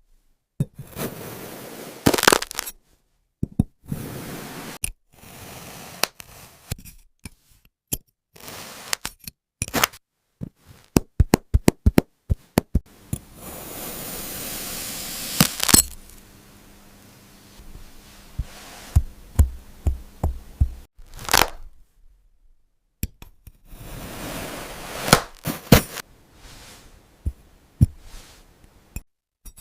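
Kinetic sand being cut and squished in a string of short close-miked clips, with crisp crunching crackles and clicks that come in quick clusters. There is a couple of seconds of steady hiss just past the middle, and the sound drops out abruptly between clips.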